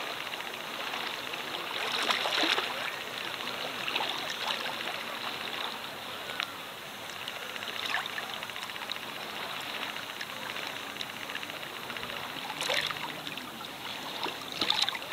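Shallow sea water lapping and splashing close to the microphone at water level, with sharper splashes about two seconds in and again near the end.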